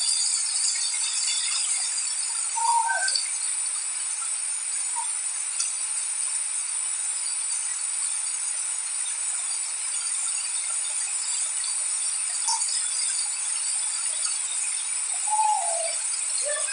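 Steady hiss of rain with no thunder. A few short chirps fall in pitch about three seconds in and again near the end.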